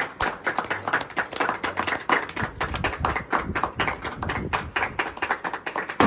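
A group of people clapping their hands: many quick, uneven claps overlapping.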